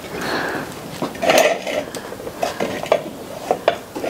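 Wooden spatula scraping and tapping chopped onion, garlic and chile off a plate into a hot pan of oil, with a string of clicks and clatters against plate and pan.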